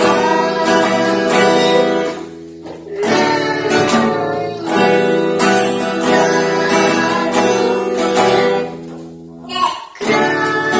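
A boy singing while strumming an acoustic guitar. The playing eases off briefly about two seconds in and again just before the end.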